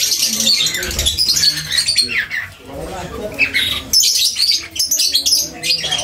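Many caged small parrots (lovebirds, budgerigars and cockatiels) chattering and squawking at once in a dense, overlapping din of high chirps.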